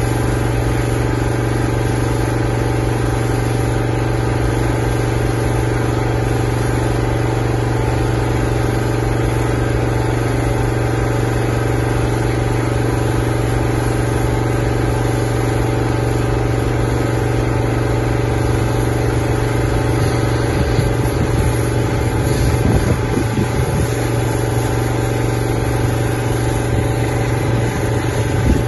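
Engine-driven pressure washer running steadily, a constant even drone while the roof is being jet-cleaned.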